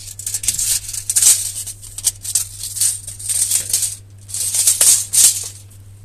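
Short bursts of rapid metallic clicking and rattling from a spanner working on the steering track rod of a mobility scooter as the track rod is turned to adjust the tracking, with a brief lull about four seconds in.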